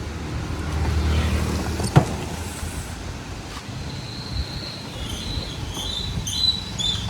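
Low rumble of a passing road vehicle, a single sharp knock about two seconds in, then a run of short high chirps through the second half.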